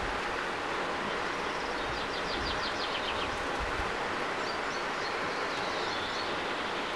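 Steady rush of flowing river water, with a small bird's quick high trill about two seconds in and a few high chirps a little later.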